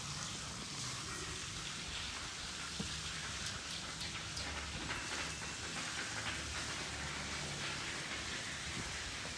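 Steady hissing background noise, like rain, with a low rumble and a few faint scattered clicks.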